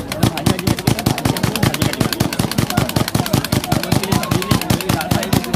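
A hand-worked kitchen vegetable cutter being used fast on vegetables: a rapid, even clacking of blade strokes, about eight a second.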